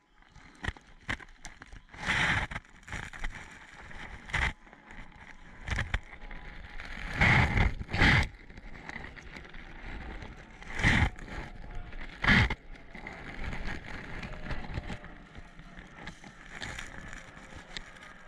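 Footsteps and the rustle of clothing and gear as a player moves through woodland undergrowth. Irregular thuds and brushing sounds, loudest about two seconds in, twice around seven to eight seconds, and again near eleven and twelve seconds.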